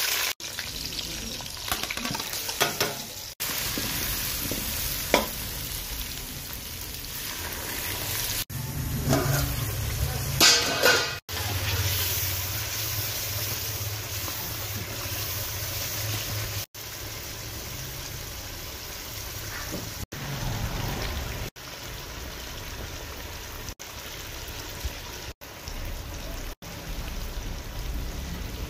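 Onions, meat and tomatoes frying and sizzling in oil in an aluminium pot, stirred with a wooden spoon. The sound drops out briefly several times.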